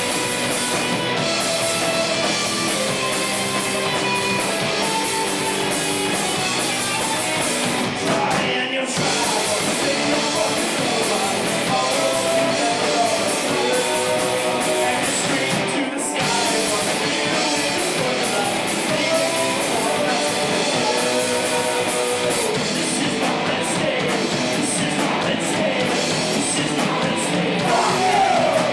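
A live rock band playing electric guitars and drum kit, with sung vocals. The music cuts out for an instant twice, about a third of the way in and again around the middle.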